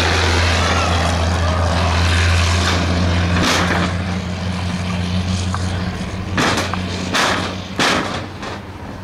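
A vehicle engine runs with a steady low hum that weakens after about three and a half seconds. Four short, sharp noises come in the second half.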